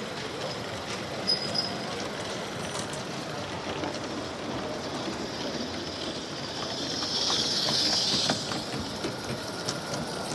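16mm-scale narrow gauge live-steam model locomotive running on its track, with a steady hiss of steam that swells to its loudest about seven to eight seconds in and then fades, and a few light clicks early on over the background noise of the hall.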